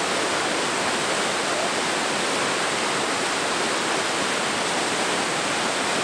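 Waterfall pouring down a sloping rock face into a plunge pool, heard close up as a steady, even rushing of water.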